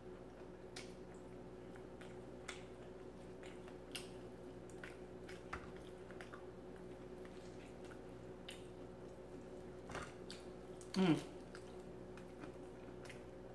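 Close-mic eating of fried chicken wings: quiet chewing with scattered soft mouth clicks and smacks over a steady electrical hum. About eleven seconds in, a short, louder sound falls sharply in pitch.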